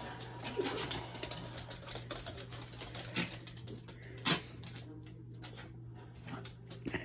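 Dogs sneezing in short, sharp bursts, the loudest about four seconds in, set off by the smell of hot pickling vinegar.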